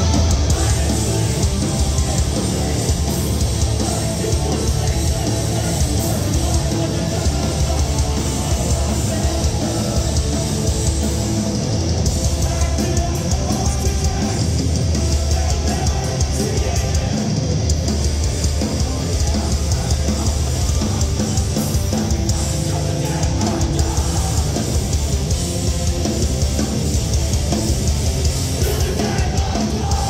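Loud live rock band playing through a large PA: distorted electric guitars, drums and vocals, with a heavy low end.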